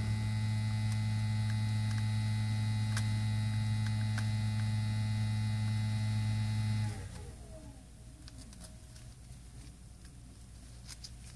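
Steady electrical mains hum that cuts off suddenly about seven seconds in, followed by a quieter stretch with a few faint clicks.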